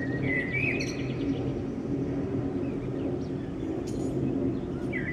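Twin-engine jet airliner passing overhead, its engines making a steady low rumble. A small bird chirps briefly about half a second in and again at the very end.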